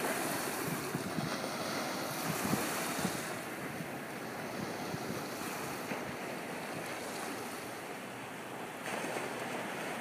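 Small surf breaking and washing up the sand, a steady hiss that swells and ebbs a little in the first few seconds.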